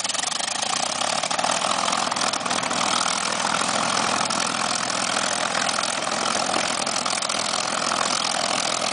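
P-51 Mustang's Merlin V-12 engine idling steadily right after start-up, a loud, even engine run.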